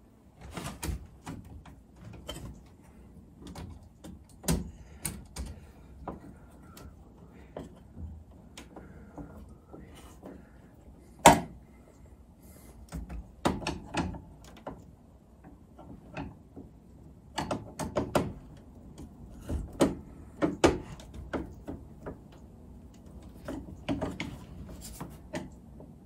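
Scattered clicks, taps and scrapes of a screwdriver and copper wire being worked against a metal breaker panel, while a hot wire is fastened to a 20 amp breaker. One sharp knock stands out about 11 seconds in.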